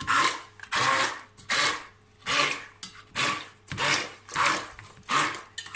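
Immersion (stick) blender churning soft boiled cauliflower into puree in a stainless-steel pot. It runs in short pulses, a little more than one a second.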